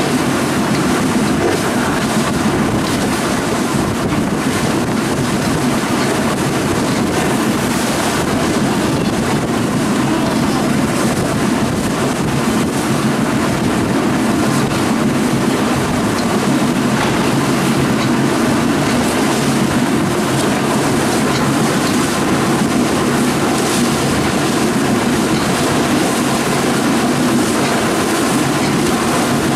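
Motorboat engines running steadily at speed, with water rushing and slapping against the hull as it crosses choppy waves.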